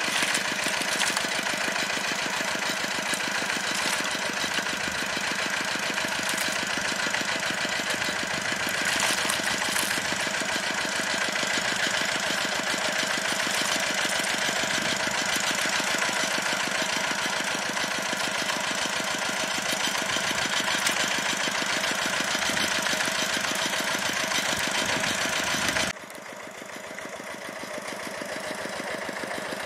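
Engine of a pond-draining water pump running steadily with an even, fast rhythmic beat. About 26 s in, at a cut, it drops in level and sounds duller, but keeps running.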